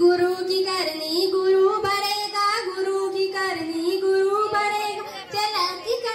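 A young woman singing a slow, unaccompanied melody into a handheld microphone, holding long notes that glide between pitches.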